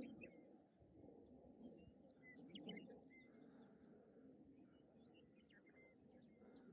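Near silence: faint outdoor ambience with many short, high bird chirps scattered throughout.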